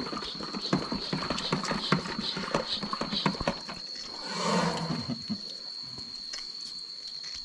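Trimming knife paring and scraping the sole of an elephant's foot around an abscess, a quick run of short cuts and scrapes for the first three seconds or so, then only a few. About halfway through a short rushing whoosh rises and fades.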